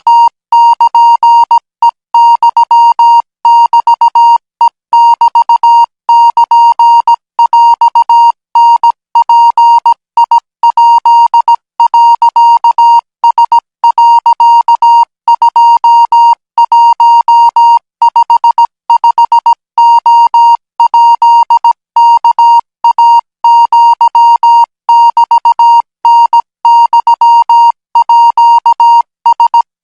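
Morse code practice signal: a single beep tone keyed on and off in short and long pulses, sending Thai Morse at 20 words per minute.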